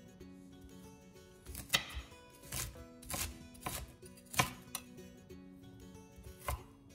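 Chef's knife chopping ginger on a wooden cutting board: a string of irregular sharp knocks through the middle and one more near the end. Soft background music runs underneath.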